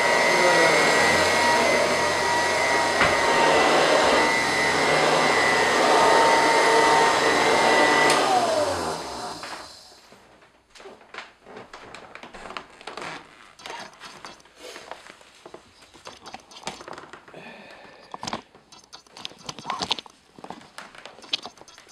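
Early-1940s Royal Model 131 upright vacuum cleaner running steadily with a high whine, its front motor bearing freshly replaced. About eight seconds in it is switched off and the motor winds down, the whine falling over a couple of seconds; then come scattered clicks and knocks as the machine is handled.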